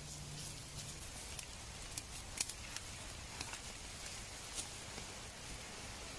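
Small open wood fire crackling, with scattered sharp pops over a low hiss as a carcass's fur is singed in the flames; the loudest pop comes about two and a half seconds in.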